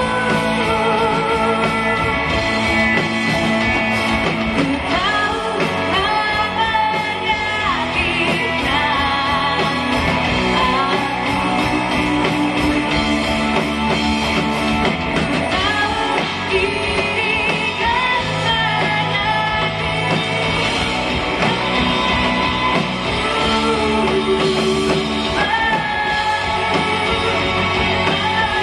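Live rock band playing a song with a woman singing lead: drums, electric guitars and keyboard under a held, wavering vocal line.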